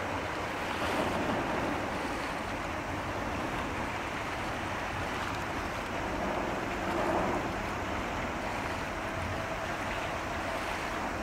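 Steady rushing noise of wind and water, swelling briefly about a second in and again about seven seconds in. A faint steady hum joins near the end.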